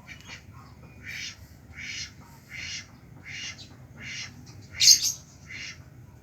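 A bird giving a run of about seven raspy, duck-like quacking calls, evenly spaced less than a second apart, the loudest one near the end.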